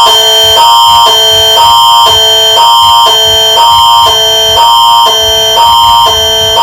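Canadian emergency alert attention signal (Alert Ready) sounding loud and steady: a fixed high tone held under two chords that alternate about every half second. It is the warning that an emergency alert message is about to be broadcast.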